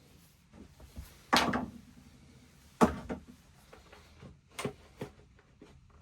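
Clunks and knocks of motorcycle parts being handled during airbox and carburettor removal: three louder knocks, about a second and a half apart, among lighter clicks and rattles.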